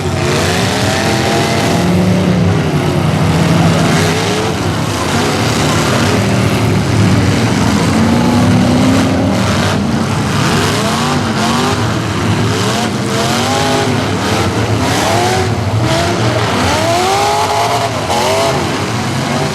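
Several demolition derby cars' loud exhaust engines revving up and down over and over, with tyres spinning and squealing and sharp crunches of cars colliding now and then.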